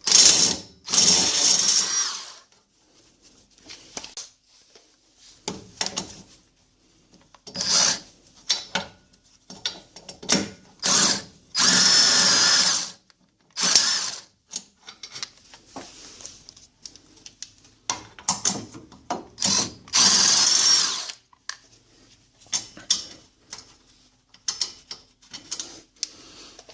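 Power impact wrench run in several bursts of one to three seconds, some with a steady whine, spinning out the 17 mm bolts that hold the front hub and bearing carrier. Lighter clicks and clinks of the tool and bolts come between the bursts.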